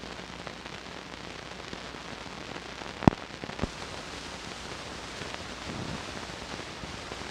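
Surface noise from the optical soundtrack of blank 16mm film: a steady hiss with faint crackle, and a sharp pop about three seconds in followed by a smaller one, the marks of dust and scratches on the film.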